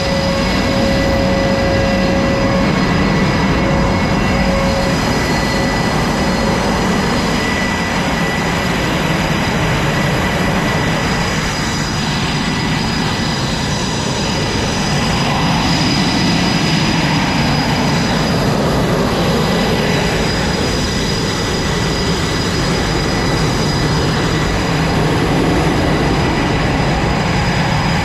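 Jet aircraft engines running on a carrier flight deck: a loud, steady roar with a high steady whine over it.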